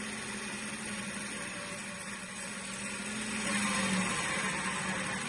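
Metal lathe running with a four-jaw chuck while a parting tool cuts through a square aluminium and brass workpiece. The cutting noise gets louder a little after three seconds in, and by about four seconds the piece has come free onto a rod held in its bore.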